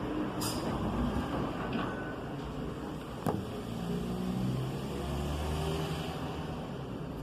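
A motor vehicle's engine running with a low rumble whose pitch shifts, and a single sharp click about three seconds in.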